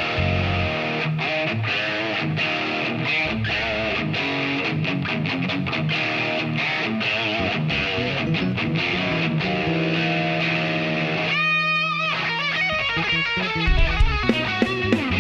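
Electric guitar playing a run of picked single notes with wavering, bent pitch. About eleven and a half seconds in there is a brief sweeping effect on the tone, and low thumps start near the end.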